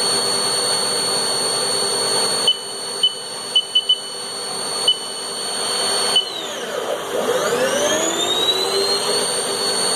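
Haas Mini Mill CNC spindle running at speed with a steady high-pitched whine. Several short high beeps sound in the middle. About six seconds in, the whine dips and then climbs back up as the spindle changes to the next speed, going from 7,000 toward 7,500 RPM.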